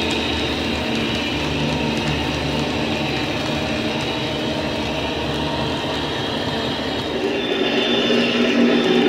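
Sound-fitted OO gauge Dapol Class 52 Western model locomotive: its DCC decoder (Howes sound) plays a steady diesel-hydraulic engine drone through an EM2 speaker, along with the model train running on the track. The sound grows louder with a stronger low note from about seven and a half seconds in, as the locomotive comes closer.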